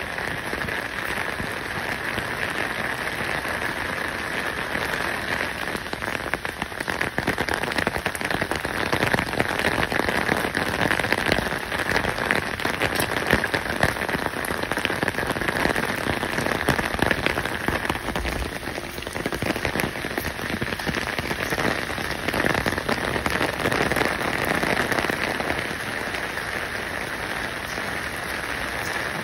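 A steady, dense patter and hiss of water, like rain falling on a surface, swelling louder several times.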